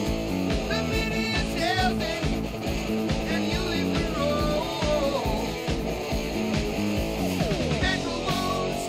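Rock music with guitar, with bending guitar notes.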